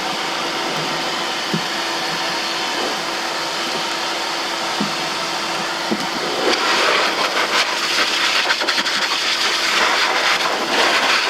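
AIIYME SH-168 pet grooming dryer blowing on its low setting: a steady rush of air, growing louder and rougher about six and a half seconds in.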